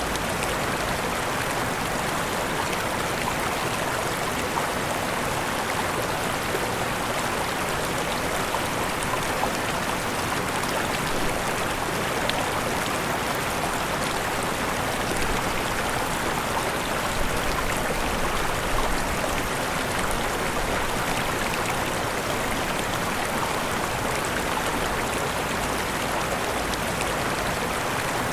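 Waterfall: falling water splashing and rushing in a steady, even stream of noise.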